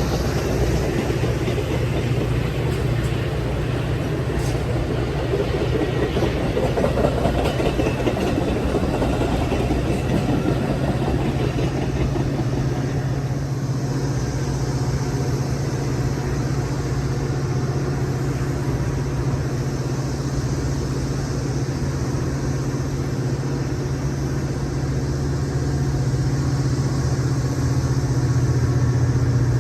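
Train at the station platform: rumbling noise for about the first twelve seconds, then a steady low hum.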